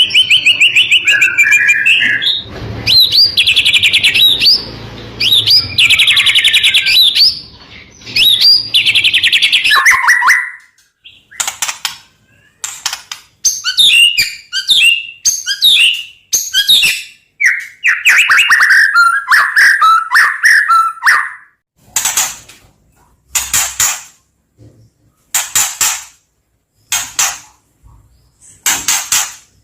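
White-rumped shama (murai batu) singing loudly. For the first ten seconds or so it runs fast trilled and rattling phrases together, then breaks into short chattering bursts and harsh, rasping notes with brief pauses between them.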